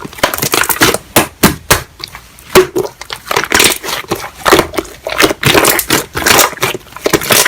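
Slime being squeezed and kneaded by hand, giving dense runs of wet crackling and popping clicks.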